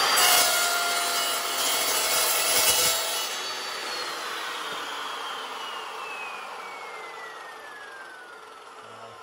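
Evolution R355 metal chop saw, a carbide-tipped blade, cutting through 1x1 steel angle iron for about the first three seconds, then the trigger is let go and the blade winds down freely, its whine falling steadily in pitch as it coasts to a stop.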